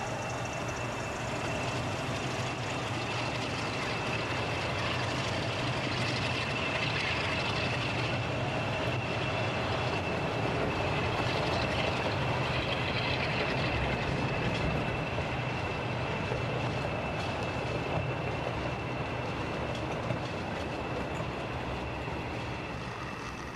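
OO gauge model train running on the layout track: a steady high motor whine over the rumble and clicking of the wheels on the rails. It grows a little louder around the middle as the coaches pass close by.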